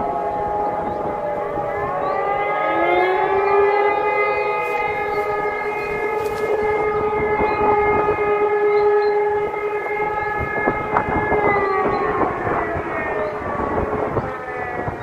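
Civil-defence warning siren sounding in a test alarm. Its pitch slides down at first, rises again about two seconds in, holds a steady tone for several seconds, then falls away near the end.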